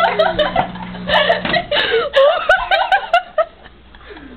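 Girls laughing and giggling, with some unclear chatter, in reaction to the egg bursting in the microwave. A low steady hum underneath stops about one and a half seconds in.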